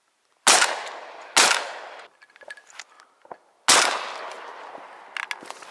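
Shotgun fired three times at a duck flying overhead: two shots about a second apart, then a third about two seconds later, each trailing off in a ringing echo. A few light clicks follow near the end.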